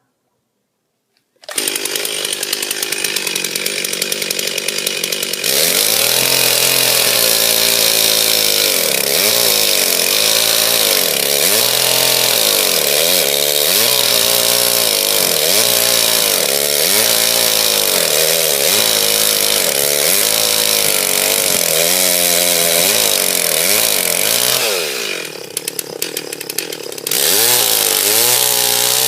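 Stihl Farm Boss chainsaw cutting a notch into a tree trunk, its engine pitch rising and falling again and again as the chain bites into the wood. It starts after a second and a half of silence, eases off to a lower, quieter running about 25 seconds in, then picks up again near the end.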